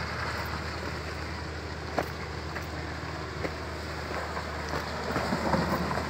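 Distant pickup truck engine running as the truck drives away over a muddy, rutted gravel track, under wind noise on the microphone. A sharp click about two seconds in.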